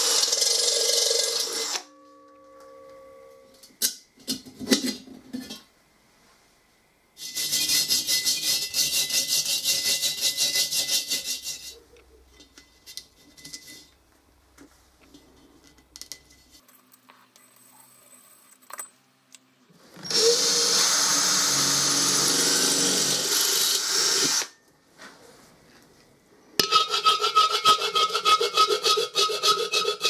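Metalworking on a steel gas-cylinder shell: a cordless drill boring out spot welds, then several separate bursts of drilling, and near the end a round file rasping back and forth on the cut edge of a hole, the thin steel ringing with each stroke.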